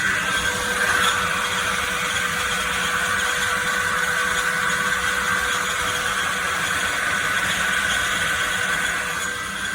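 Stanley SL18115P 5-gallon wet/dry shop vacuum running steadily, its motor giving a constant airy rush with a steady high whine.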